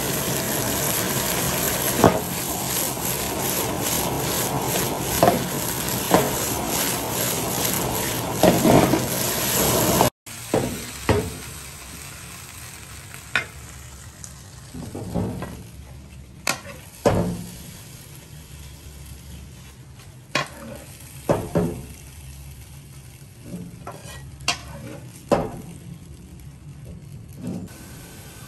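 Food sizzling loudly as it is stir-fried in a hot pan, with utensil clicks against the pan. About ten seconds in the sizzle cuts off abruptly, and after that there are only quieter, scattered clinks and knocks of utensils and dishes.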